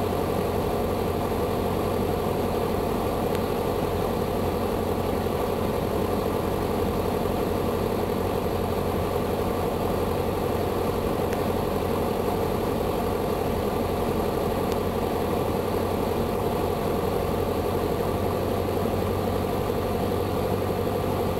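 Steady cabin drone of a Beechcraft Sundowner's four-cylinder Lycoming engine and propeller at set approach power, heard from inside the cockpit on approach to landing.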